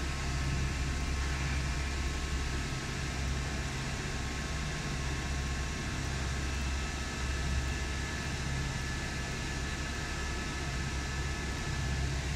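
Paper tube polishing machine running steadily: a constant low motor hum with a faint high whine and hiss over it.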